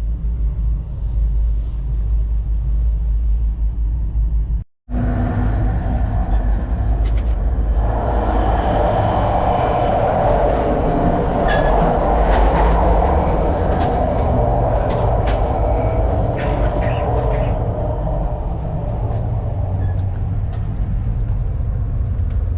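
VIA Rail passenger train running on the rails, heard from on board: a steady low rumble with scattered clicks, and a louder rushing noise through the middle. The sound drops out for an instant about five seconds in.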